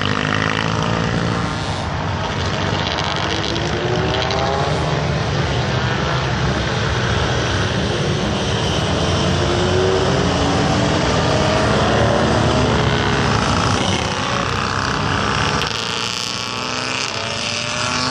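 Several racing motorcycles lapping a circuit, their engines revving up and down in overlapping passes, the pitch rising and falling as they go through the curves.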